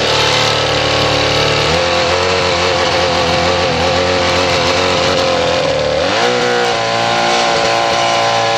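Jetski engine fitted in an aluminium tinny running loudly under way, its note changing about two seconds in and rising about six seconds in as the revs change.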